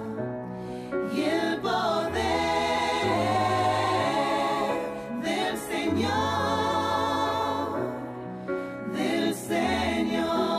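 A choir of women singing with electronic keyboard accompaniment, the held bass notes changing every second or two.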